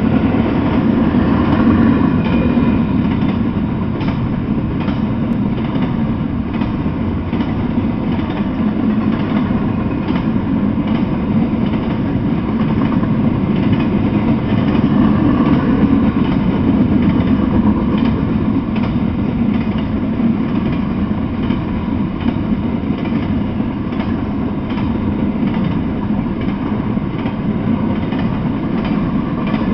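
Double-stack intermodal freight train rolling past at a steady speed: a steady, loud low rumble of steel wheels on rail, with faint scattered clicks.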